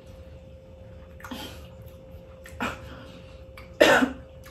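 A woman coughing: two small coughs, then a loud one near the end.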